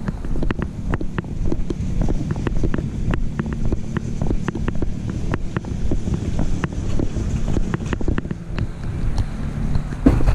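Walking on a concrete sidewalk, heard through a GoPro clipped to a backpack chest strap: irregular clicks and knocks as the camera jolts with each step, over a low wind rumble on the microphone. A louder knock comes near the end.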